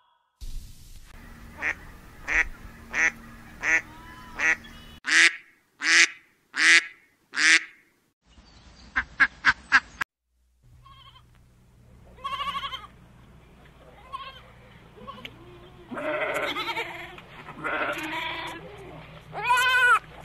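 A run of short, evenly spaced animal calls, then a goat bleating several times over the second half.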